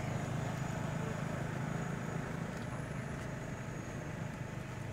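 A motor vehicle's engine running, a steady low hum that slowly fades.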